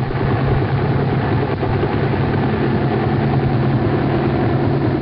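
Helicopter sound effect from an old radio broadcast: a helicopter's engine and rotor running steadily, with a strong low drone.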